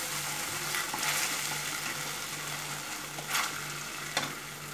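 Sauce sizzling in a hot frying pan while a wooden spatula stirs and scrapes through it, with a couple of sharper scrapes near the end.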